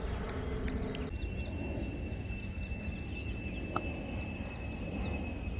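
Open-air field ambience: a steady low wind rumble on the microphone, with faint bird chirps. A distant engine drone cuts off abruptly about a second in, a thin steady high whine runs from then on, and a single sharp click comes near the middle.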